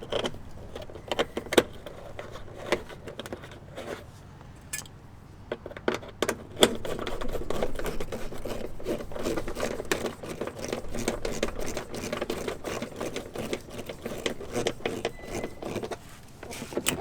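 Small metal fasteners clicking and clinking as the bottom screw of a mud flap bracket is fitted, with a stretch of rapid, continuous ticking from about six seconds in until near the end as it is screwed in.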